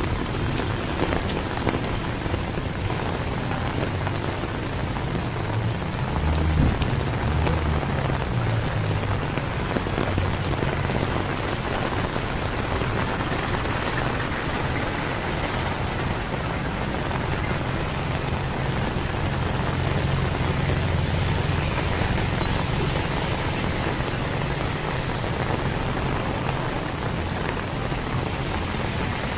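Heavy rain pouring steadily, a dense even hiss, with a low rumble underneath that swells briefly about six to nine seconds in.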